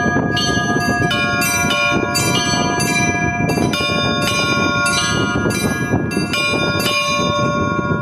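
Russian Orthodox church bells rung for Easter: bells of different pitches struck in turn, about two strikes a second, each left ringing into the next. This is the festive Easter peal.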